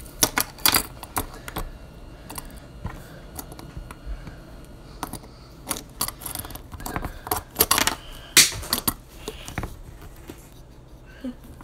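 Irregular small clicks and clatters: a fidget spinner and its loose metal bearings being handled close to the microphone.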